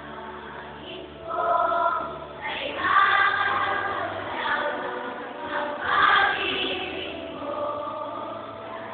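Choir singing a hymn, swelling louder about a second in, with its strongest passages a little later and again past the middle.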